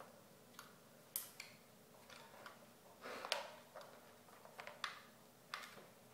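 Faint, scattered clicks and knocks of a G&P MK23 airsoft machine gun being handled, its body shifting in the hands. There are about a dozen small clicks, the loudest a little past three seconds in.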